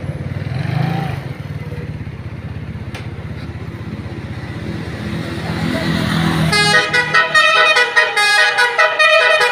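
A bus engine running for the first six seconds or so, then a telolet basuri bus horn plays a fast multi-tone tune, its notes changing several times a second.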